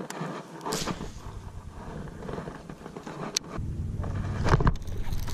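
Wind rumbling on the microphone, growing louder about a second in and again past the middle. Over it come a few sharp clicks and knocks from a baitcasting rod and reel being handled.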